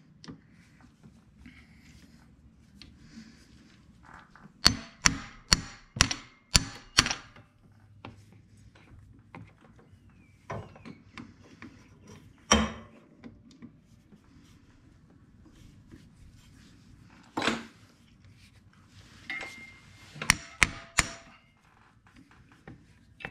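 Claw hammer striking a hand impact screwdriver to break loose the tight screws of a 125cc ATV clutch cover. There is a quick run of about six sharp strikes around five seconds in, two single strikes later, and another quick run of four near the end.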